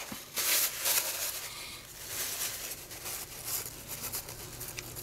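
Paper towel rustling and crinkling as hands handle it and wipe the outside of a plastic mould tub, in soft irregular scuffs.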